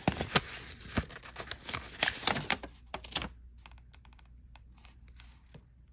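A shipping label being peeled off a package by hand: a run of crackles and sharp clicks for about three seconds, then fainter scattered ticks as the paper is handled.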